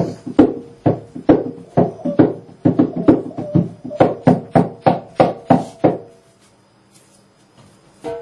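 Percussive performance music: a quick, uneven run of sharp knocking hits, about three a second, each with a short pitched ring. It stops about six seconds in, and a single struck, ringing note sounds near the end.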